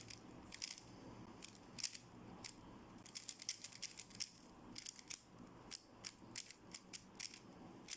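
Plastic 3x3 speedcube being turned rapidly by hand: quick, irregular clicks and clacks as its layers snap round.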